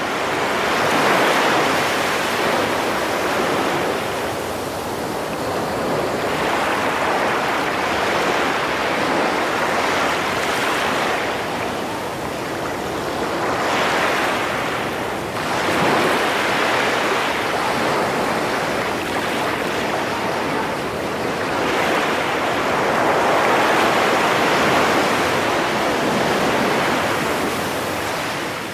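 Ocean surf breaking on a beach, a steady wash of waves that swells and falls back every few seconds.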